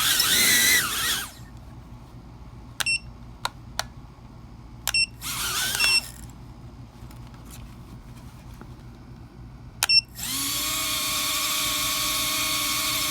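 Emax TinyHawk 2 micro drone's small brushless motors whining in two short bursts that glide in pitch, with a few sharp short beeps between, then spinning steadily with a high whine from about ten seconds in. The motors are driven by a freshly installed replacement all-in-one board that the owner reports as dead on arrival.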